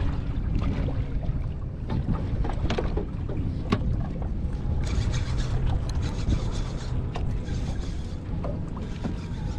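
Wind buffeting the microphone as a low steady rumble, with scattered short knocks and clicks from handling on the boat's deck.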